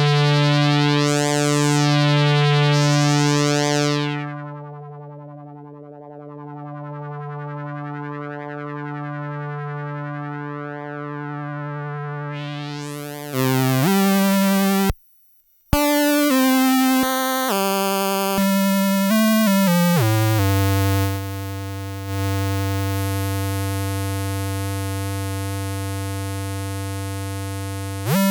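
Yamaha CS01 analog monosynth. It first plays a long sustained note whose filter slowly sweeps open and closed, then, after a brief gap, a quick run of single notes at changing pitches, then a long held low note. Each note is a buzzy tone rich in overtones, with no voice or accompaniment.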